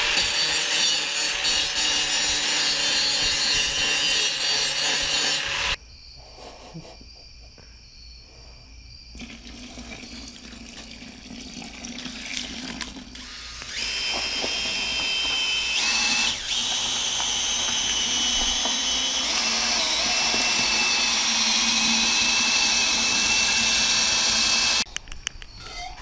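Angle grinder cutting into a steel lid, stopping abruptly about six seconds in. Later a power drill with a mixing paddle runs steadily with a whine for about ten seconds, stirring a white mix in a bucket.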